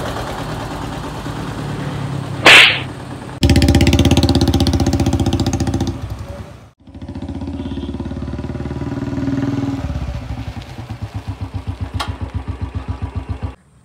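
Motorcycle engine running and revving as the bike pulls away, with a sharp loud bang about two and a half seconds in. Near the end the engine settles into an even beat of about five or six pulses a second.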